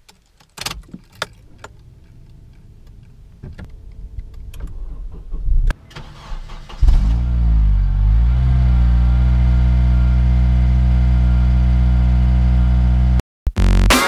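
A Honda Civic Type R's 2-litre naturally aspirated four-cylinder engine starting about seven seconds in, after several faint clicks. Its revs dip and rise briefly, then it settles to a steady idle that cuts off suddenly near the end.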